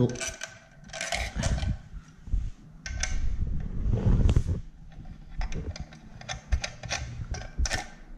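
Irregular small clicks, taps and rustles of hands working a crimped ring terminal and its red rubber cover onto the DC input terminal of a car power inverter.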